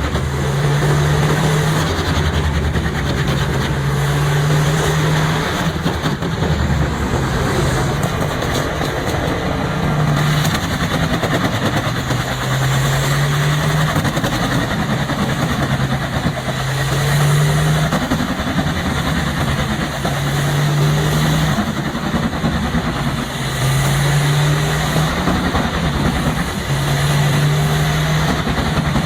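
Pezzolato PTH 1400/1000 drum wood chipper running under load: its Caterpillar diesel engine and grinding drum make a steady roar, with the low engine note swelling and easing every few seconds as the log is pulled in.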